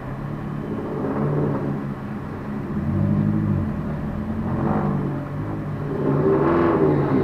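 Car engine running, rising and falling in pitch a few times as if revved, heard from inside a stationary car's cabin.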